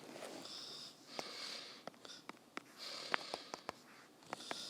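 A person breathing and sniffing close to the microphone, in several short hissy breaths, with scattered light clicks and taps.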